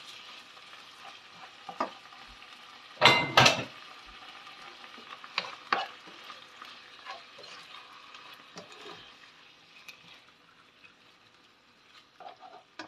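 Diced pork and chicken liver sizzling in a frying pan while a plastic slotted spatula stirs and turns them, with scattered clicks of the spatula against the pan and a brief louder clatter about three seconds in. The sizzle grows fainter near the end.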